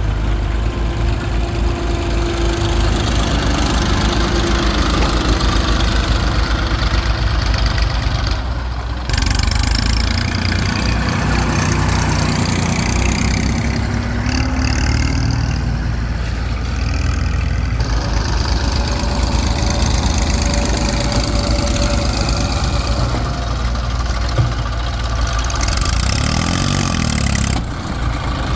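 Heavy diesel machinery engine running steadily, with a brief rise in revs about a dozen seconds in. The sound changes abruptly about nine seconds in and again near the end.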